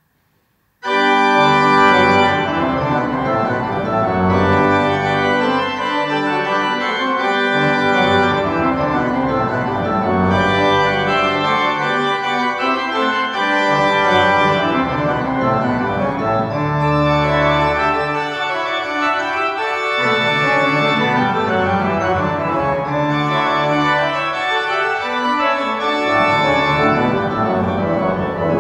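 Goll pipe organ playing the opening of a festive prelude in G major: full chords broken by rests, answered by fast running sixteenth-note lines in the manuals and pedals. It starts about a second in.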